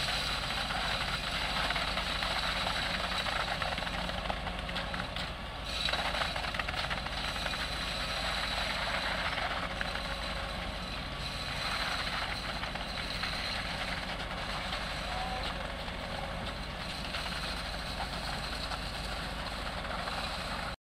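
Steady running of heavy construction machinery, the truck-mounted concrete pump and concrete mixer truck working during a concrete pour, with a faint steady high whine. The sound cuts off suddenly near the end.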